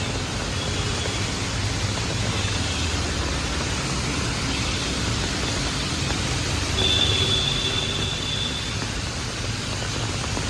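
Steady hiss of rain and passing traffic on a wet street, with a high thin tone lasting about two seconds about two-thirds of the way through.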